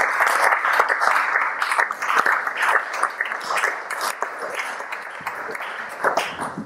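Audience applauding: a roomful of people clapping, thinning out gradually and dying away near the end.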